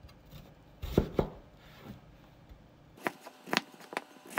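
Knife slicing through a peeled Korean radish and knocking on a wooden cutting board: two chops about a second in, then several quicker, crisp knocks from about three seconds in.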